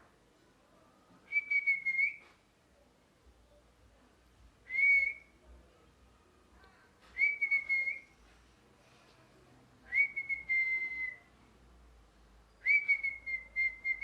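Ringneck parrot giving five whistled calls, each under a second on one steady high note, spaced a few seconds apart; the fourth call sags slightly in pitch at its end.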